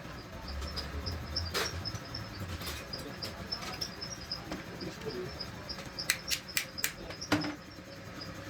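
Sharp clicks or knocks, likely from handling gearbox parts: one early on and a quick run of five about six to seven seconds in. Behind them is a steady, fast high chirping of insects.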